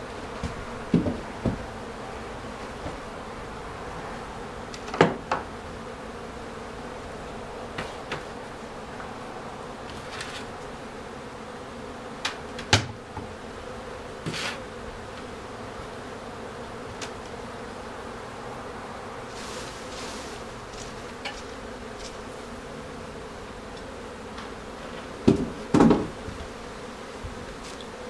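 Steady hum of many honey bees from an open hive, with a handful of sharp wooden knocks as hive parts are handled and set down, the loudest about five seconds in, about thirteen seconds in, and a pair near the end.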